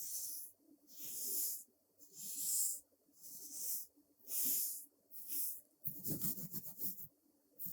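Brush bristles swept over a surface close to the microphone in slow strokes, about one a second, each a soft swish. Near the end they give way to a quick run of short, rapid strokes.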